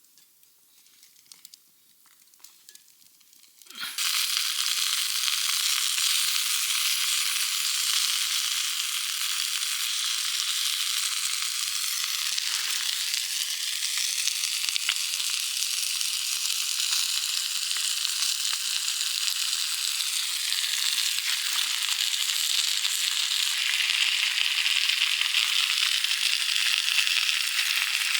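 A few faint clicks, then food begins sizzling in a hot pan about four seconds in, starting suddenly and going on steadily.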